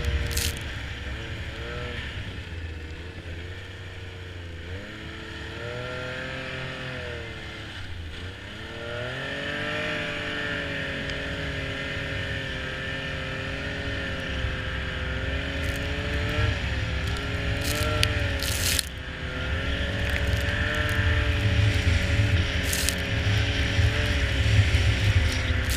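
Snowmobile engine running, its pitch dipping and rising again and again as the throttle changes, growing louder in the second half, with a few sharp knocks.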